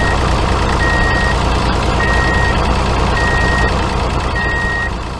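Heavy vehicle engine rumbling with a reversing alarm beeping, one steady beep about every 1.2 seconds, the sound of a truck or tractor backing up.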